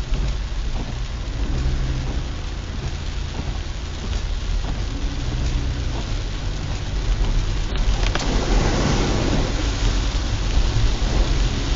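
Heavy rain falling on a car's roof and windshield, heard from inside the cabin over the steady low rumble of the car driving on a wet road. About eight seconds in, a louder rushing swell rises for a second or so.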